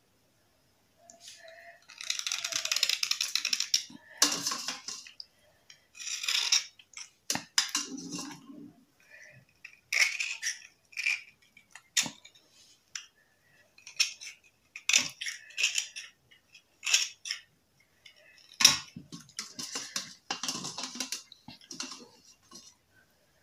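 A metal blade scraping the wet surface of a black bar in irregular short strokes, with a few sharp clicks of metal, as the white gritty outer layer is scraped off.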